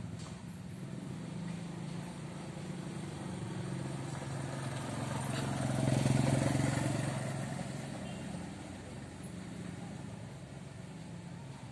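A motor vehicle engine passes by: a steady engine hum grows louder to a peak about six seconds in, then fades away.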